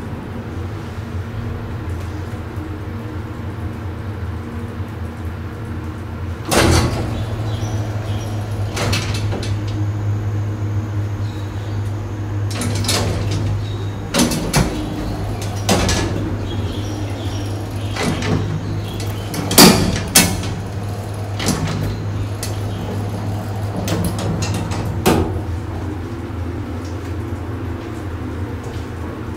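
Steel sliding doors of a 1970s Fujitec lift opening and closing, with a series of sharp clunks and rattles over a steady low hum from the lift. The hum gets louder with the first loud clunk about six seconds in.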